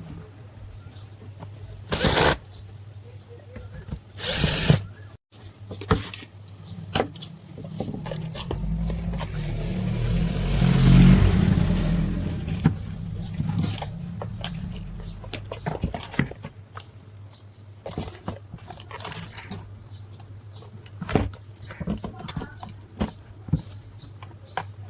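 Repair work on a wall fan: scattered clicks, taps and knocks of tools and metal parts over a steady low hum. Two short loud bursts come about 2 and 4.5 seconds in, and a louder sound swells and fades about halfway through.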